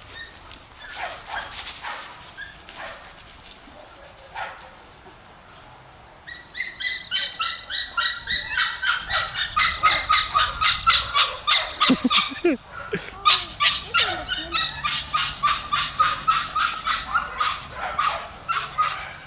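Young dachshund–beagle mix puppy barking in a rapid, steady run of high yips, starting about six seconds in, as it chases a rabbit: a hound giving tongue on game.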